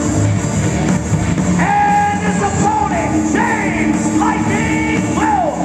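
Music: a song with a singing voice whose melody slides up and down over loud, continuous backing.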